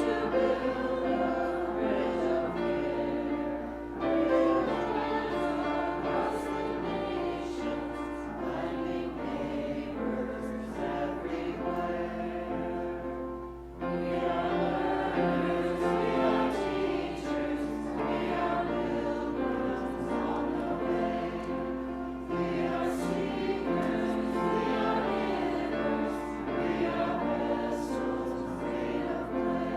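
Church choir singing, in sustained chords; the sound dips briefly about fourteen seconds in, then the singing carries on.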